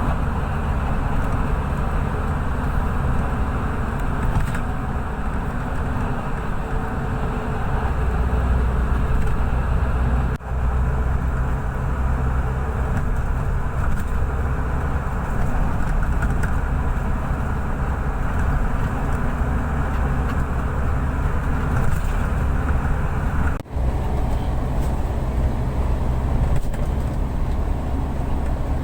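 Steady road and engine noise of a car travelling at highway speed, strongest in the low rumble, dropping out briefly twice.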